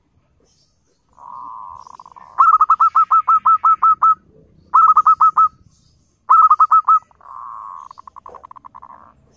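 Zebra dove (local perkutut) cooing: a soft rolling trill about a second in, then three runs of loud, quick, clipped coos, each note dipping in pitch, at about six notes a second, and another rolling trill near the end.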